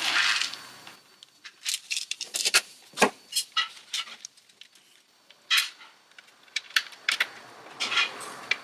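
Scattered small clicks and taps, with one firmer knock about three seconds in, as parts and cables of an opened Maschine Mk3 controller are handled and fitted back together.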